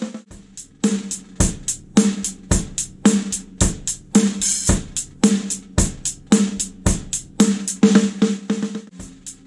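Drum kit played in a steady groove of bass drum, snare and hi-hat, the snare being a fiberglass-shelled Monolith with a coated Powerstroke head. A quick flurry of strokes comes near the end.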